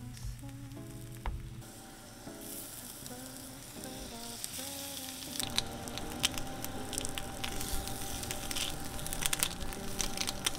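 Bread slices frying in a hot cast iron skillet: a sizzle that builds about two seconds in and turns into dense crackling from about halfway, over soft background music.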